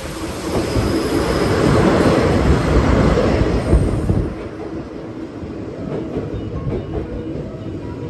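DD51 diesel-hydraulic locomotive passing close, its noise swelling to a peak over the first four seconds, then dropping off suddenly as the 12 series passenger coaches roll past more quietly on their wheels.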